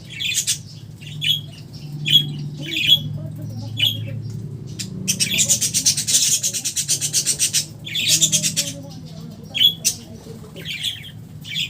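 Pet birds squawking: a string of short harsh calls, with a longer run of rapid harsh squawks about five to seven seconds in, over a low steady hum.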